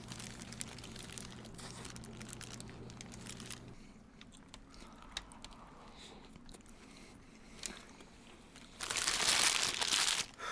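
Close-up eating sounds: faint chewing and mouth clicks as burgers are eaten, then near the end a loud burst of crinkling as a paper burger wrapper is handled.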